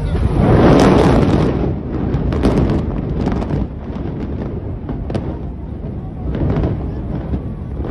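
Controlled-demolition blast of two high-rise towers: explosive charges going off in a loud burst about a second in, followed by several separate sharper bangs over the next few seconds as the towers come down.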